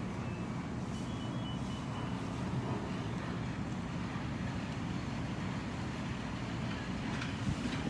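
Fire apparatus diesel engines running, a steady low rumble.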